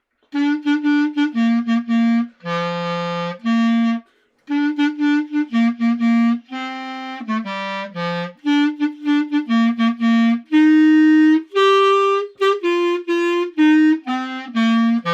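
Music: a single-line instrumental melody of short, separate notes with a few held longer ones, pausing briefly about four seconds in.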